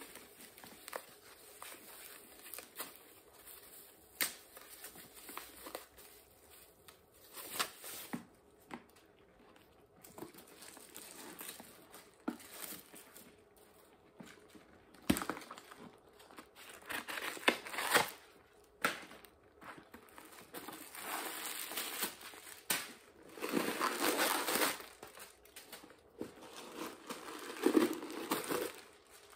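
Paper wrapping crinkling and rustling as it is handled, unwound from a handbag's handle and pulled out of the bag, in scattered bursts that grow busier and louder from about halfway through.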